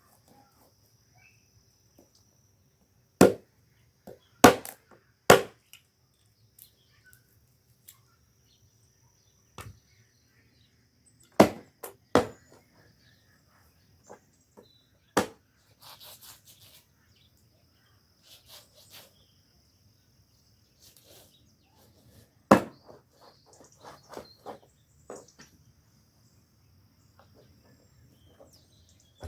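Sharp chopping strikes, about seven loud ones spread a second to several seconds apart, a few coming in quick pairs, with a faint steady high-pitched buzz behind them.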